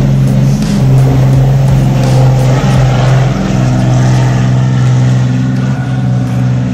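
Background music with a steady bass line, over the engine and rushing spray of an aluminum gillnetter running fast at planing speed.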